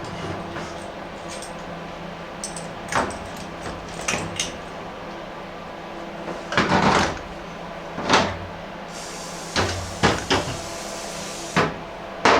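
Workshop handling sounds: about nine separate knocks and clunks, one longer clatter about six and a half seconds in, over a steady low hum.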